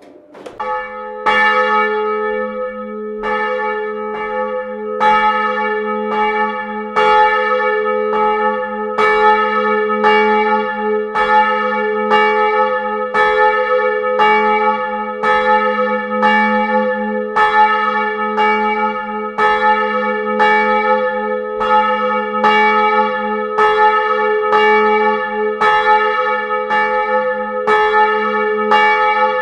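Small bronze church bell tuned to A-flat (as'), cast in 1985 and 92 cm across, swinging and ringing at close range in its tower. The clapper strikes about once a second, each stroke ringing on into the next, and the strikes build up in the first second.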